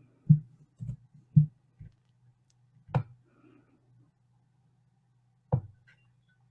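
A handful of short, soft clicks and knocks at irregular intervals, from a computer mouse and keyboard being worked at a desk, over a faint steady low hum.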